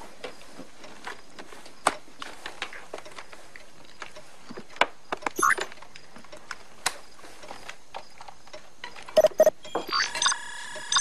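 Soft rustling and small clicks of a wrapped package being handled and opened, with a couple of short knocks about nine seconds in. Near the end, a computer plays a chord of several steady electronic tones as it loads video data.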